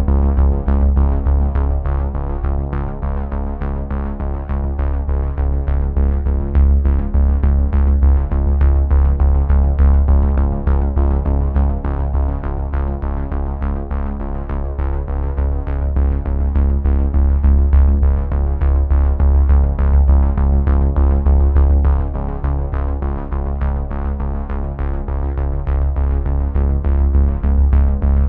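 Instrumental background music: a steady, rapid pulse over sustained low tones.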